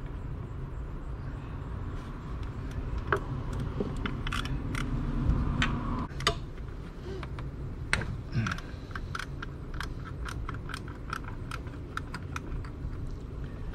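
Ratchet wrench with a 12 mm socket clicking as it backs out the bolt of the intake surge tank stay. The clicks are scattered at first, then come in a steadier run of about three a second over the second half.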